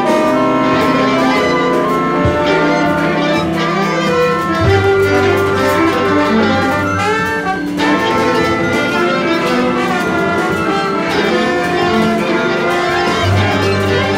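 Large jazz orchestra of brass, saxophones, strings and bass playing together in dense, overlapping held notes over a deep bass line, with a few sliding notes about halfway through.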